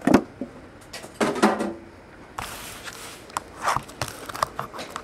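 A hard cardboard card box and a plastic-wrapped card pack handled on a table: a sharp knock about a second in, a brief rustle of plastic wrap, then several light taps and clicks.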